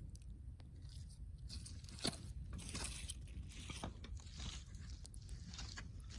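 Wood campfire crackling, with irregular sharp pops and snaps over a soft hiss, the loudest snap about two seconds in.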